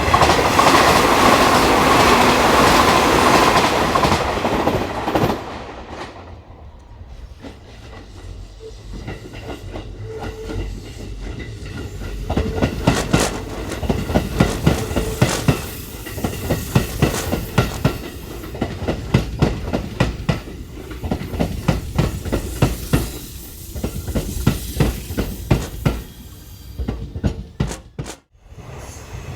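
Electric commuter trains on the Hanshin Main Line running through the station. A loud rush of a passing train fills the first few seconds. From about a third of the way in, the wheels clack steadily over the rail joints until a brief dropout near the end.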